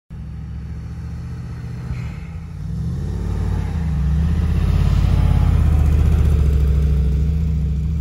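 Mercedes-Benz G-Class SUV engine pulling through soft beach sand, a low rumbling note that climbs in pitch and grows louder about three seconds in, then holds steady.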